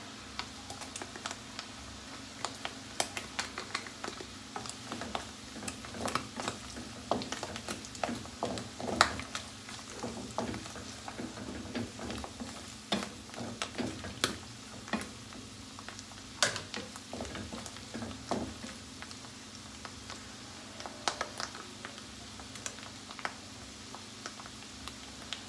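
Sliced button mushrooms and minced garlic sizzling in butter in a non-stick frying pan, with a wooden spatula stirring and scraping against the pan in frequent short clicks and taps. The stirring becomes sparser near the end.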